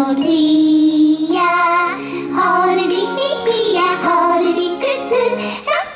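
Children's song: a high, childlike singing voice holding notes over backing music.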